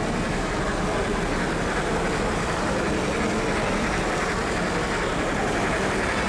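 Model trains running on a layout's track, a steady running noise with the general noise of an exhibition hall behind it.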